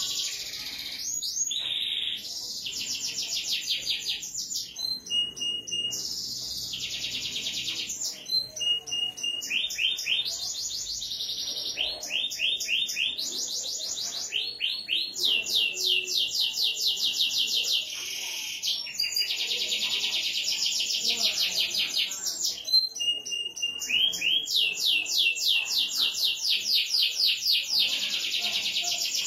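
Domestic canary in full song: long, fast rolling trills of high notes, about ten a second, one phrase after another with only brief pauses, mixed with a few short whistled notes.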